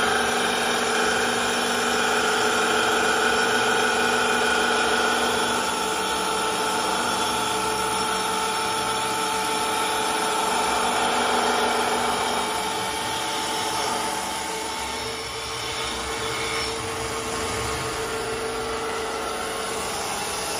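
STYLECNC STL1530-A wood CNC lathe running and cutting a wooden spindle: a steady motor whine over the hiss of the cutters removing wood. It eases off slightly about three quarters of the way through.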